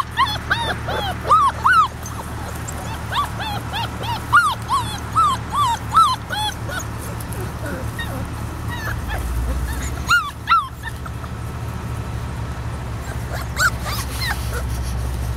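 Saint Bernewfie puppies (Saint Bernard × Newfoundland cross) whimpering and yipping: a quick run of short high cries, each rising and falling in pitch, through the first several seconds, then a few scattered ones later.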